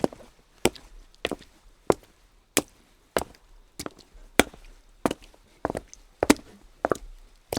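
Footsteps of shoes walking at a steady, even pace on wet cobblestones, about a step and a half a second, each step a sharp hit, some with a slight double heel-and-toe contact.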